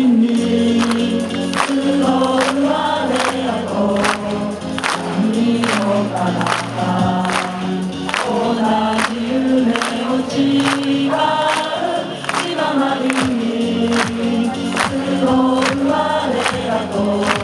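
Crowd of Chiba Lotte Marines supporters singing a team cheering song in unison, with a steady beat.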